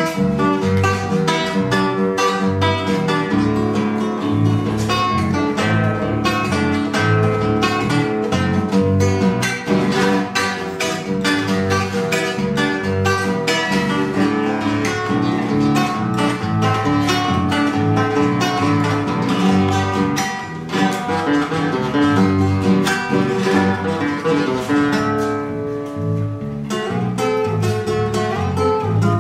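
Solo nylon-string classical guitar playing an instrumental chamamé passage: quick plucked notes over a pulsing bass line.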